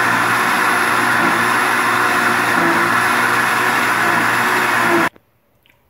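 Countertop blender motor running steadily with a faint high whine, blending a liquid mousse mixture, then switched off about five seconds in, cutting off suddenly.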